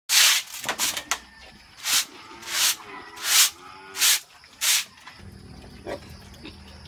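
Young weaner pigs squealing: a string of about nine loud, shrill squeals, roughly one every 0.7 s, stopping about five seconds in. A steady low hum then begins.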